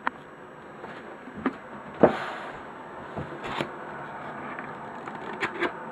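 Hands handling a cardboard camera box as its lid is worked open: several short knocks and scrapes of cardboard, the loudest about two seconds in, over a steady background hum.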